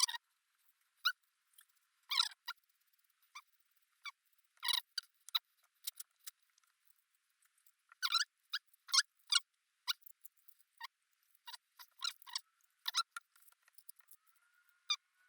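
Short, irregular scrapes and squeaks of small metal engine parts being rubbed and polished by hand with abrasive paper and handled on the bench, several quick strokes close together around the middle and again near the end.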